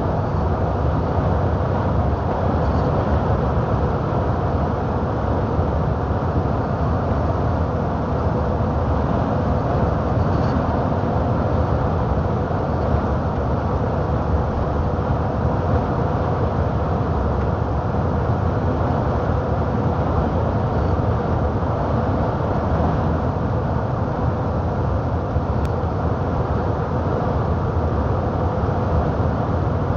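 Truck driving on the highway: a steady rumble of engine and road noise with a faint constant hum.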